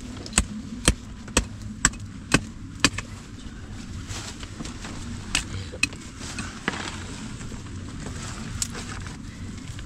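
Sharp knocks repeated evenly about twice a second, stopping about three seconds in, then a few scattered knocks over a steady background hiss.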